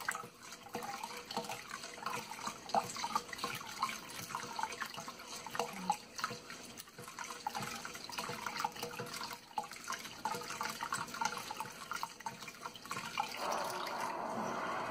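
Pandan juice poured from a glass jug into a steel bowl of thin rice-flour batter while a hand squeezes and swishes through it: irregular wet sloshing, squelching and splashing.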